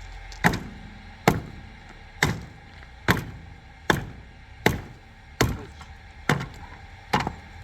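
Nine hard, evenly paced blows of a striking tool, a little under one a second, each sharp at the start and trailing off in a short ringing decay.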